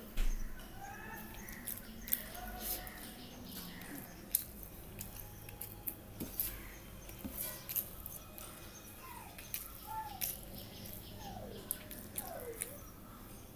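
Fingers mixing and mashing soft dal-and-rice on a steel plate: irregular small sticky squelches and clicks. Near the end come a few short squeaky calls that dip in pitch.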